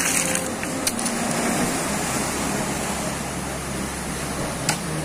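Rough sea surf breaking and washing over rocks: a steady rushing noise, with two short clicks, one about a second in and one near the end.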